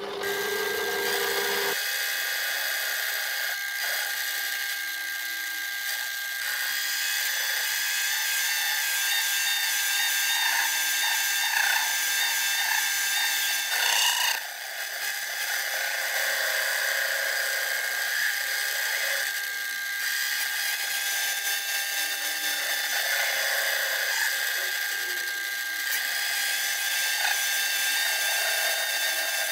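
Small metal lathe starting up, its motor whine rising in pitch over the first two seconds, then running at a steady high whine. The turning tool cuts a 15-degree flank of a V-groove into a 2-inch pulley blank.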